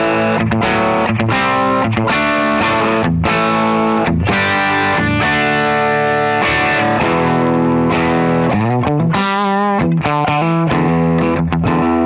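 Leo Jaymz Monsoon electric guitar played through an amplifier with distortion: sustained chords and single notes, with a wavering vibrato bend a little past the middle.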